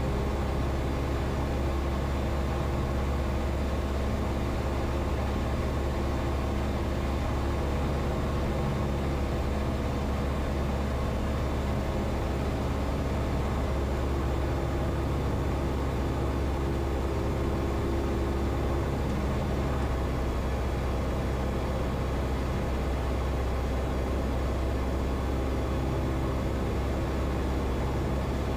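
Cessna 172's piston engine and propeller running as a steady, even drone on final approach.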